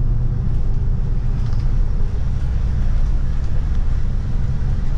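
Steady low engine and road rumble heard from inside a moving vehicle.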